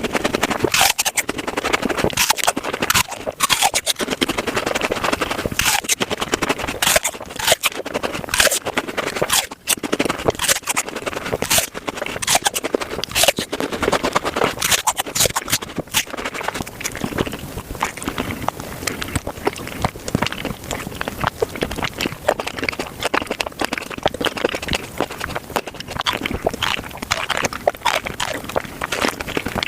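Fruit being bitten and chewed close to the microphone, sped up, so it comes through as a dense run of quick crunches and sharp clicks.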